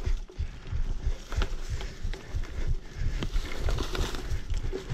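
Mountain bike ridden over a bumpy dirt trail: irregular knocks and rattles from the bike and its handlebar-mounted camera, over a rumble of tyres on dirt and dry leaves.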